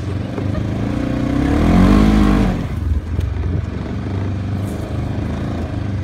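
Engine of a vehicle towing a sled on a rope over snow, running steadily and revving up and back down about two seconds in.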